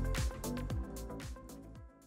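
Electronic background music with a steady beat of kick drum and hi-hats, fading out.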